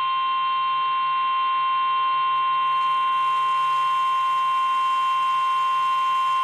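NOAA Weather Radio 1050 Hz warning alarm tone: one steady, unbroken tone that signals a weather warning broadcast is about to follow.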